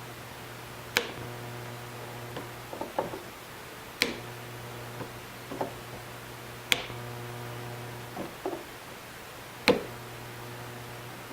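Hand clippers snipping through the metal posts of a circuit-board switch: four sharp snaps about three seconds apart, with softer clicks and knocks of handling the tool and board between them.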